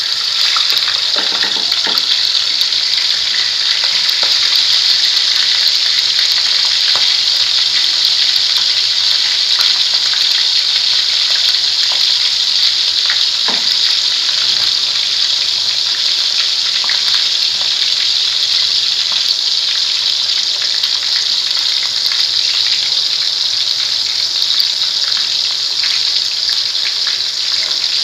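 Chicken leg piece deep-frying in hot oil in a steel pot: a loud, steady sizzle with scattered crackling pops.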